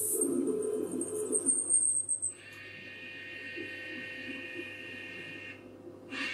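Drilling machine running during a metal-drilling demonstration. A high whine falls slowly in pitch over the first two seconds with some irregular low rumbling, then a steady multi-tone machine whine starts, drops out briefly and comes back near the end.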